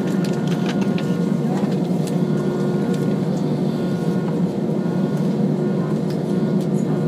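Cabin noise of an Airbus A320 taxiing, heard from inside: a steady low rumble from the idling IAE V2500 turbofans, with a few steady whining tones and some faint ticks and rattles.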